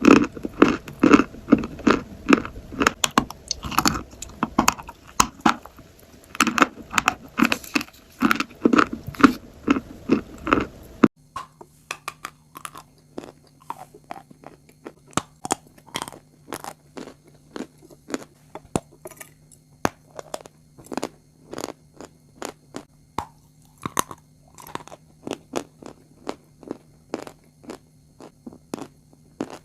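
Close-up crunchy chewing, with loud bites and crunches in a quick rhythm. About eleven seconds in, it cuts to quieter, sharper crunching over a steady low hum.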